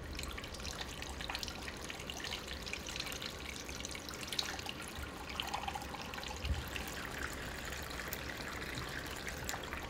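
Seawater poured from a glass flask through a plastic funnel, trickling steadily into a trough of water with a fine splashing crackle.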